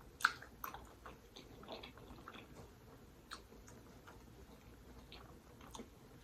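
Close-miked chewing by a person eating, with scattered short wet mouth clicks and smacks, the loudest just after the start.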